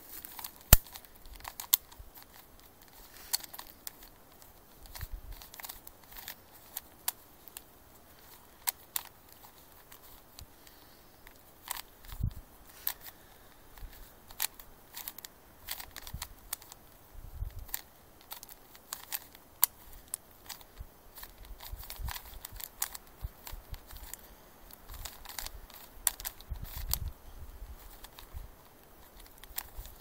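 Rubik's cube being turned fast by hand during a solve: its plastic layers click and clack in quick, irregular runs of sharp snaps.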